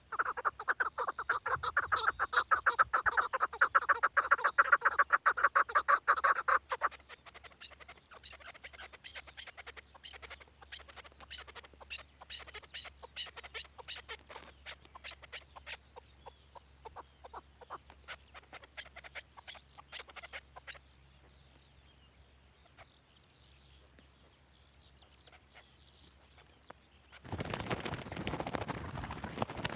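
Chukar partridges calling: a fast run of clucking notes, loud for the first six or seven seconds, then fainter and thinning out until about twenty seconds in. A sudden burst of rustling noise near the end.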